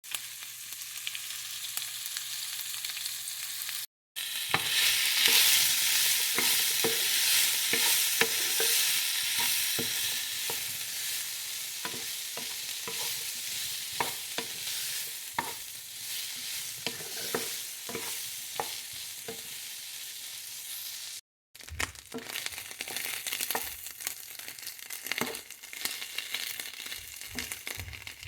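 Chicken sausages frying in a pan, with a steady sizzle and frequent clicks of a utensil stirring and turning them. The sizzle breaks off sharply twice.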